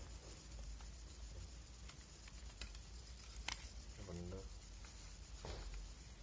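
Quiet room tone with a steady low hum, a sharp click about three and a half seconds in, and a brief low murmur of a voice just after.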